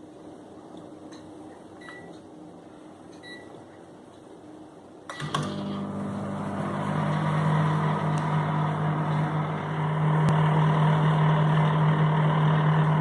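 Microwave oven keypad beeping twice, then about five seconds in it clicks on and runs with a steady low hum and fan noise, baking a mug cake.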